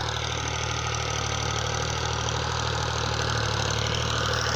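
Tractor engine idling steadily at an even, unchanging pitch.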